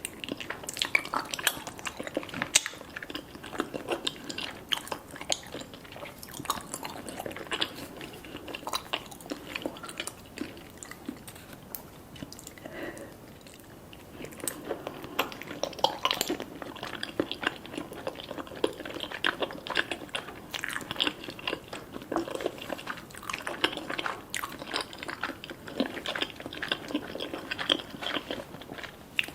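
Close-miked chewing and biting of spicy fish cake and gimbap, with dense, irregular wet mouth clicks and smacks and an occasional crunch. The eating eases off briefly about ten to fourteen seconds in, then picks up again.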